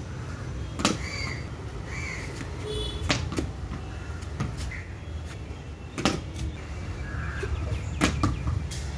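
Sharp knocks of a cricket bat striking a ball and of the ball rebounding off the concrete terrace walls and floor, about six in all, the loudest about six and eight seconds in.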